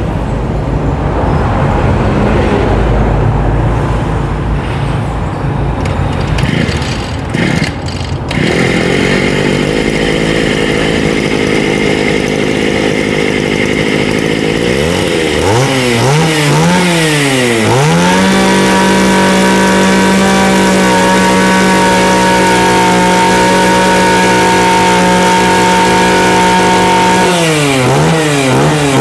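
Honda UMK brush cutter's small four-stroke engine running: a low rumble and some clatter at first, then a steady idle. From about halfway it is revved up and down several times, held at high revs for several seconds, then blipped up and down again near the end.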